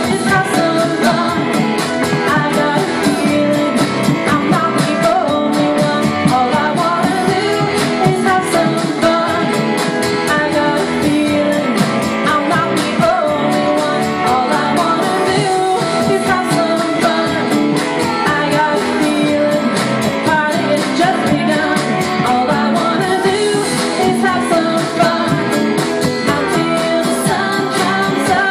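A woman singing a song live into a microphone, accompanied by a guitar.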